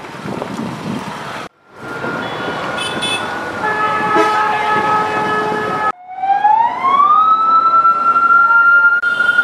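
A siren: first a noisy stretch like wind on a microphone, then after a sudden break a steady pitched tone that shifts to a new note partway through. After a second break the siren winds up in pitch over about a second and holds a loud, high steady note.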